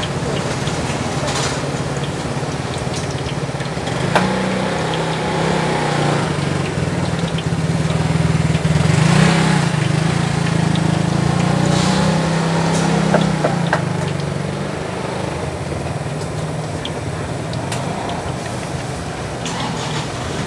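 An engine running nearby: a steady low hum that comes up about four seconds in, peaks near the middle and fades after about fourteen seconds, over a steady hiss.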